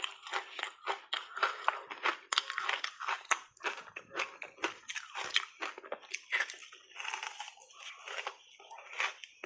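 Ice coated in matcha tea powder being bitten and chewed: a dense, irregular run of sharp crunches and cracks, several a second.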